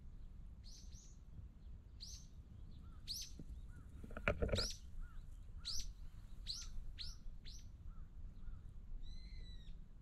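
Small birds chirping: repeated quick, sharp chirps, each falling in pitch, with a different short call near the end. A brief scuffing noise about four seconds in.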